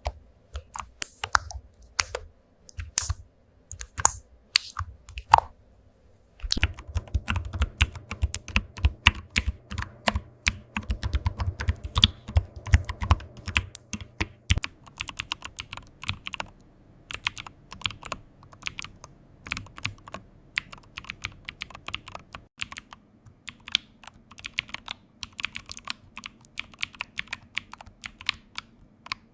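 Typing on a computer keyboard, key after key clicking. For the first six seconds the keystrokes are scattered. Then comes a fast, dense run of keystrokes with a deeper thud under each one, lasting until about fourteen seconds in, and after that steady typing.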